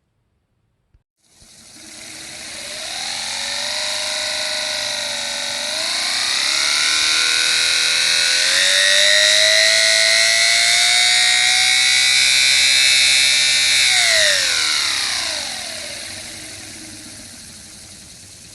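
A motor-spun cardboard disc with four masking-tape tabs flicking a paper strip, making a buzz like a four-cylinder engine revving. It starts about a second in, rises in pitch in steps and holds high, then drops sharply about fourteen seconds in and fades as the disc spins down.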